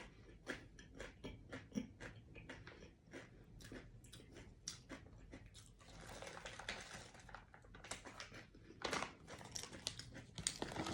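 A person chewing a crunchy snack, with many small, irregular crunches.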